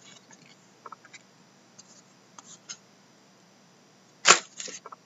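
Trading cards handled by hand: faint rustles and light taps as the cards slide against each other, then one sharp snap about four seconds in, followed by a few softer clicks.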